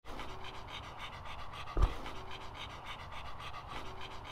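A dog panting fast and close by, in a steady rapid rhythm. A dull low thump cuts in once, a little under halfway through.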